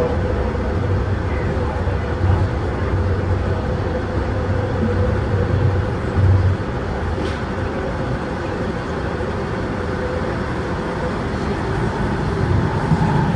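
Toronto Rocket subway train running through a tunnel, heard from inside the car: a steady rumble of wheels on rail with a steady whine that fades out about two-thirds of the way through, and a brief bump about six seconds in.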